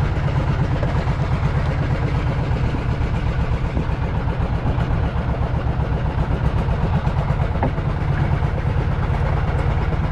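Fishing boat's engine running steadily at low revs: a constant, slightly pulsing low rumble.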